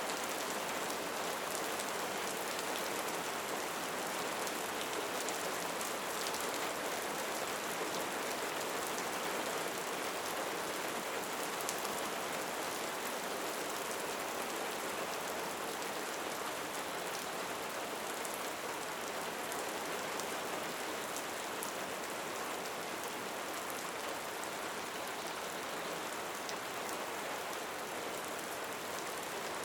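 Steady rain falling: an even hiss with fine ticks of individual drops.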